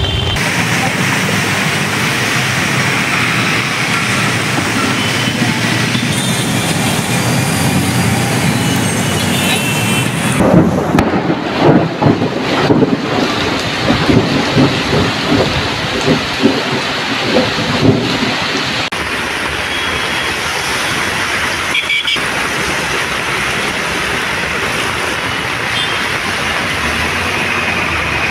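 Heavy rain pouring steadily, with a stretch of irregular low thumps and rumbling through the middle.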